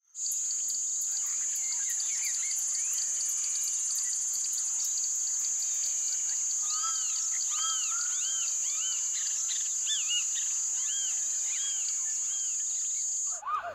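A chorus of insects and birds: an insect's steady, high-pitched trill runs without a break under many short, repeated bird chirps. It cuts off sharply near the end, giving way to louder calls.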